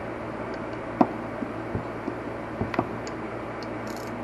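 Hand tools clicking and knocking on metal while engine-cover bolts are snugged down: a few sharp knocks, the loudest about a second in, and a brief high rattle near the end, over a steady background hum.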